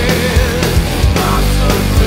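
Hard rock song playing at full level: drums and bass under a dense wall of guitars, with a held melody line that bends in pitch.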